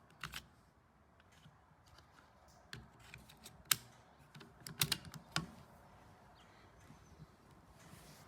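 Bolt of a CZ 457 .22 LR bolt-action rifle being worked between shots: a scatter of light clicks as the spent case is cleared and the next round is loaded, with a quick cluster of clicks about five seconds in.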